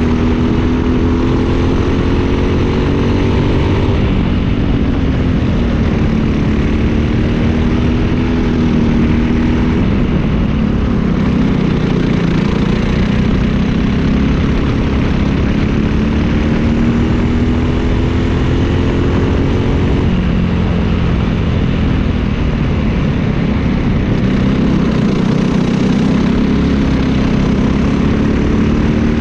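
Briggs & Stratton LO206 single-cylinder four-stroke kart engine at race pace. Its revs climb steadily along the straights and drop sharply three times when the driver lifts for corners. A steady rush of noise lies underneath.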